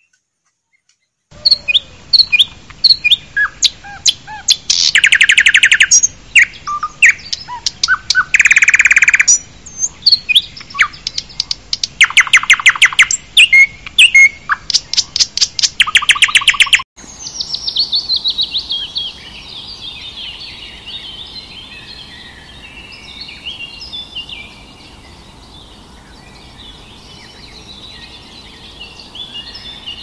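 Several wild birds calling close by, loud runs of rapid repeated notes and trills with short gaps between them. About halfway through this breaks off suddenly and gives way to a quieter, steady chorus of many birds chirping over one another.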